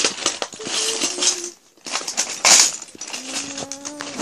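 Clattering and rustling of small plastic toy pieces being handled, with many quick irregular clicks mixed with camera handling noise. A brief steady low tone sounds near the end.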